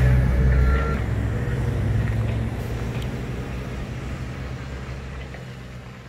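Mini excavator's diesel engine running steadily, with one short travel-alarm beep about half a second in; the sound fades away gradually toward the end.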